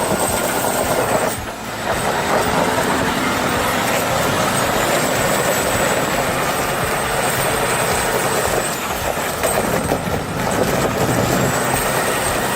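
MAZ 6x6 off-road truck's diesel engine working hard under load: a dense, steady mechanical din that dips briefly about a second and a half in and again about ten seconds in.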